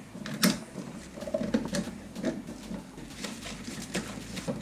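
Irregular small clicks and light knocks of an old GFCI outlet and its solid wires being handled in the wall box, with a sharper click about half a second in and another at the end.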